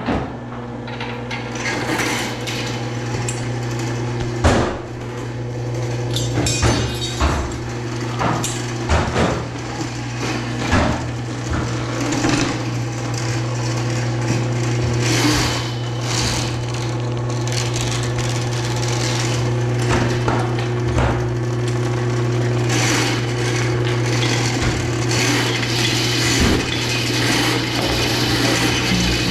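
Motor of a drain-cleaning machine running with a steady hum, with irregular knocks and clatters from the cable working against a floor drain clogged with wipes and paper.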